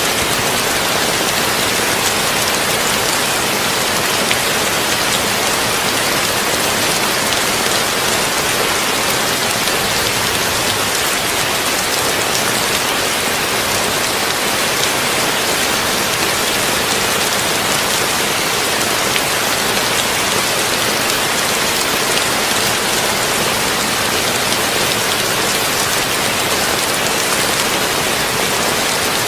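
Heavy rain on a tin roof: a steady, dense hiss of drops that does not let up.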